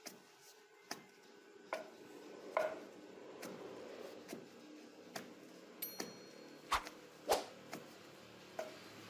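Wooden pestle pounding a mix of meat, onion and cassava flour in a pilão mortar to make farofa: irregular dull thuds, roughly one a second, with a few louder strikes.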